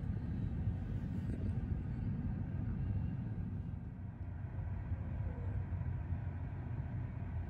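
Low, steady rumble of a Sounder commuter train, a set of bilevel coaches with an MP40PH-3C diesel-electric locomotive.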